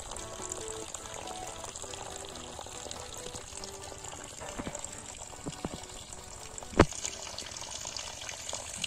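Steady splashing and trickling of water from a homemade mini pump, a small DC motor with a bottle-cap impeller, with a few sharp taps in the second half, the loudest about seven seconds in.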